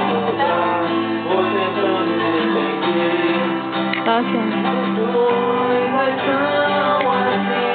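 Recorded music: a sertanejo-style song with acoustic guitar and singing.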